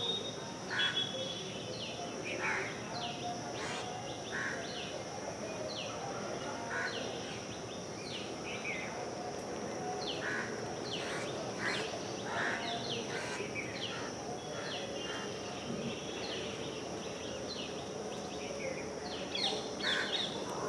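Small birds chirping repeatedly, each call a short, quickly falling note, over a steady high insect drone.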